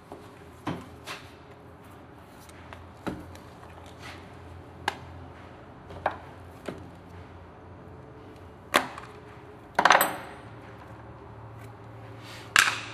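Scattered clicks and knocks of tools and small metal parts of a disassembled wet polisher being picked up and set down on a hard workbench, with a few louder knocks in the second half, the longest with a short ring about ten seconds in.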